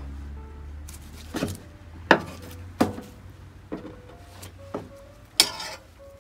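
Kitchen knife knocking on a wooden cutting board as thin maki sushi rolls are sliced: about half a dozen sharp knocks and taps, unevenly spaced, the loudest around two seconds in and near the end.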